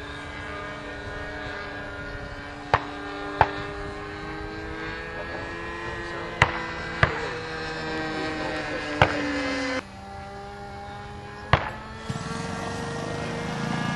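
Engine of a giant-scale RC Cessna model running in flight, a steady buzzing drone whose pitch slowly sinks and shifts. About half a dozen sharp clicks cut in over it.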